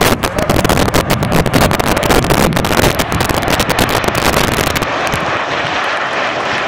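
Loud roar of a formation of NF-5 jet fighters passing low overhead, with dense crackling for the first few seconds. From about five seconds in it settles into a steadier rushing roar.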